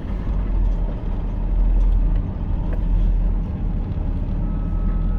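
Vehicle engine and road rumble, a steady low drone heard from inside the moving vehicle.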